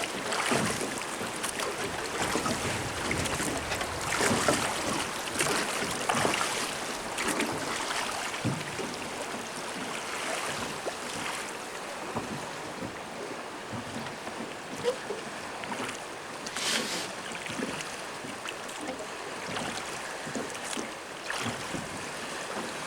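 Water rushing and splashing around a non-motorised fishing boat drifting down a river, with a louder splash now and then and some wind on the microphone.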